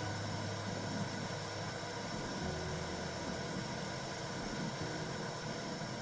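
Womb sound for soothing a baby: a steady whooshing noise over a low hum.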